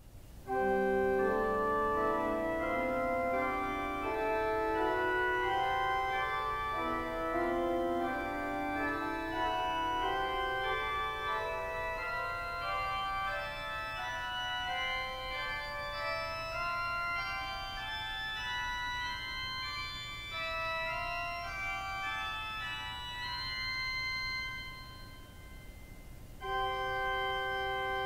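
Freshly tuned Fourniture V, a five-rank Swell mixture stop on the Midmer-Losh pipe organ, played alone: a slow run of single notes climbing steadily upward, each note a bright cluster of high pitches sounding together. Near the end the notes break off briefly and a held chord begins.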